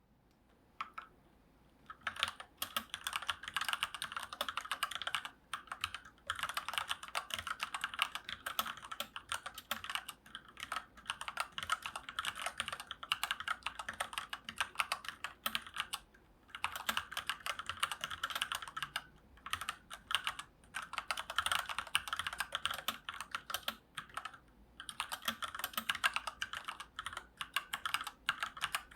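Typing on an iRocks K75M mechanical keyboard with Gateron Red linear switches: fast runs of key clacks broken by brief pauses, beginning about two seconds in.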